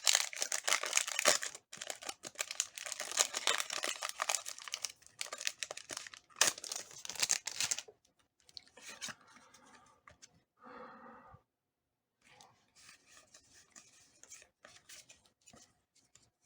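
Foil Pokémon booster pack wrapper being torn open and crinkled, a dense crackling for about eight seconds. It then drops to faint rustles and soft clicks as the cards are handled.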